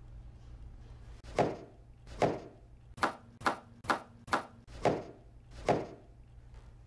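Eight sharp knocks, unevenly spaced and each with a short ring-out, over a low steady hum.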